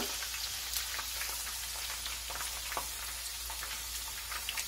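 Sliced garlic frying in olive oil in a frying pan: a steady sizzle with many small crackles and pops, and one louder pop right at the start. The oil is bubbling a bit too hard, the heat a little too high for the slow, gentle frying the garlic needs.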